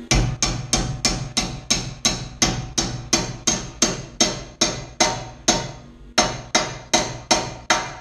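Small sledgehammer striking a steel tab welded onto a steel bumper tube, pounding it down to the tube's curve: steady ringing metal-on-metal blows, about three a second, with a short pause near six seconds in.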